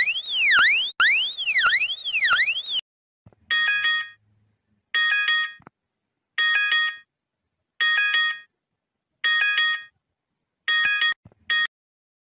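Electronic emergency alert tones. A fast rising-and-falling warble stops about three seconds in. Then comes a series of chord-like beeps about every one and a half seconds, and the last one is cut short near the end.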